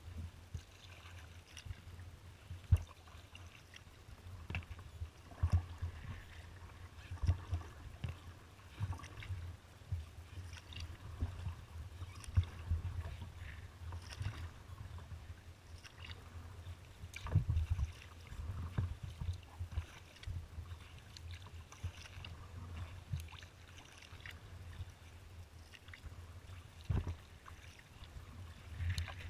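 A kayak being paddled: paddle blades dipping and splashing, with scattered sharp knocks and thuds against the hull, over a steady low rumble of water and wind on the boat.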